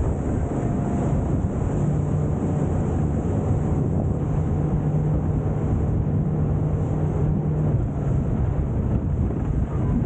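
Rigid inflatable boat under way at speed: a steady low engine hum under heavy wind noise on the microphone.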